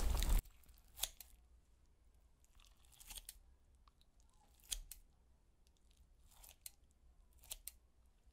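Kitchen scissors snipping through a large cheese-topped meatball in a dish of stew: about five quiet, separate snips spread a second or two apart.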